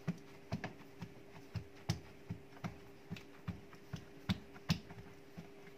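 Hands patting and pressing paper towel down onto sliced eggplant on a countertop, blotting the water out of the slices: a string of soft, uneven pats, about three a second. A faint steady hum runs underneath.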